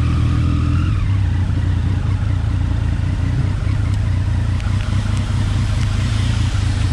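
Triumph Street Triple 675's inline three-cylinder engine, fitted with an Arrow aftermarket exhaust, running steadily with a low hum as the motorcycle is ridden.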